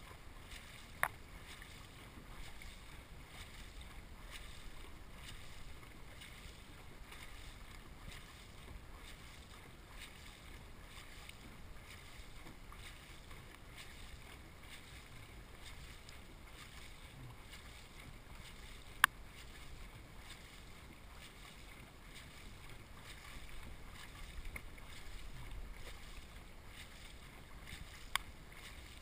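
Faint wash of water and paddle strokes from a crewed dragon boat under hard paddling, heard through a boat-mounted action camera. Three sharp clicks stand out: one about a second in, one about two-thirds through, and one near the end.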